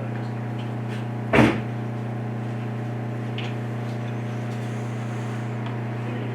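Steady low machine hum, with a single loud knock about a second and a half in.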